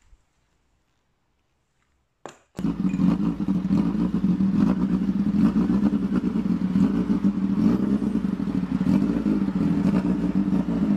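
Motorcycle engine running steadily, starting abruptly about two and a half seconds in after a short knock and near silence.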